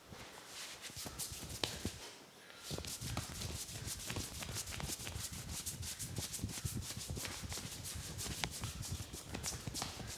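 Hands slapping and tapping rapidly on a person's head during a head massage, several quick strikes a second with dull thuds. This starts about two and a half seconds in, after a short spell of quieter rubbing.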